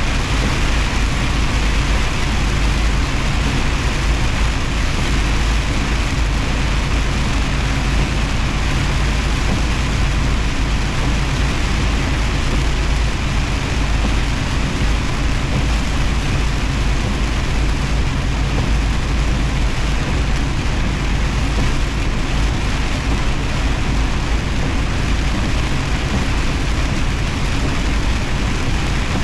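Semi truck driving at highway speed: a steady low engine drone with an even hiss of tyre and road noise over it.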